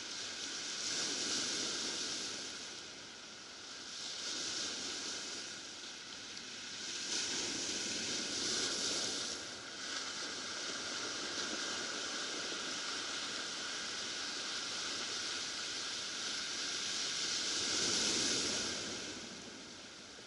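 Ocean surf breaking and washing over a cobble beach, swelling and fading in surges every few seconds, the loudest surge near the end.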